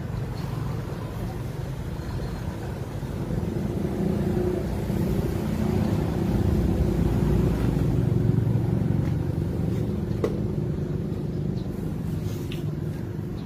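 Low rumble of a running vehicle engine, swelling about four seconds in and easing off near the end, with a sharp click about ten seconds in.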